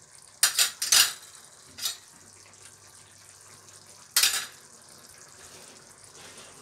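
Metal kitchen utensils and a stainless steel cooking pot clinking and clattering: a quick cluster of sharp clinks in the first second, another near two seconds, and a louder clatter just after four seconds.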